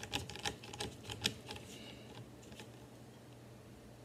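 A quick, irregular run of small sharp clicks and taps, thinning out about two and a half seconds in. These are a screwdriver and metal rifle parts being handled as the stock screw of a Henry lever-action .22 is tightened down.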